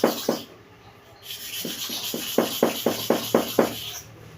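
Hair clipper blade rubbed to and fro on a sharpening stone in quick, even strokes, about four to five a second. The strokes stop about half a second in and start again after about a second, running on until shortly before the end.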